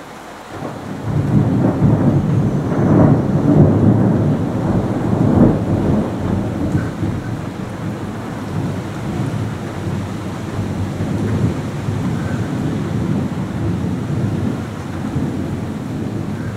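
A long roll of thunder that swells about a second in, is loudest over the next few seconds, then rumbles on more softly, with rain falling.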